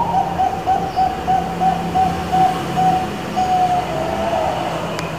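Zebra dove (perkutut bangkok) cooing: a quick run of short, even notes, about four a second, that ends in a longer held note and a lower trailing note.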